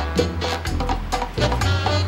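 Background film music with a quick, steady beat, about four strokes a second, over a moving bass line.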